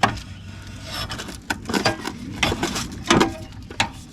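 Irregular sharp metal knocks and clanks, some ringing briefly, as the filter drier is worked loose from the copper refrigerant line of a scrapped central air conditioner.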